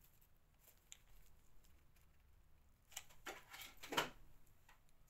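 Quiet handling of craft materials: faint ticks and rustles as fabric flowers and a hot glue gun are handled, with a brief stretch of rustling and a sharp knock about three to four seconds in.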